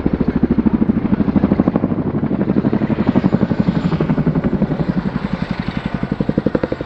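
Boeing Chinook HC.6 tandem-rotor helicopter manoeuvring hard, its rotors beating with a fast, even, rhythmic blade slap. The chop stays loud and eases slightly near the end.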